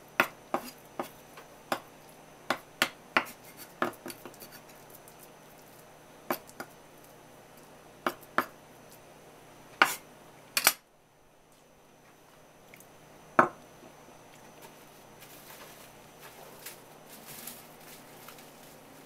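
Kitchen knife blade patting and tapping a mound of minced sardine namerou against a wooden cutting board to shape it: sharp knocks, two or three a second at first, then fewer and further apart. The sound cuts off suddenly about halfway through, and a single knock follows a few seconds later.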